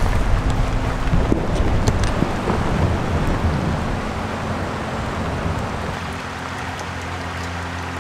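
Steady rain falling, with a few sharp drips early on and a low rumble that fades away over the first few seconds.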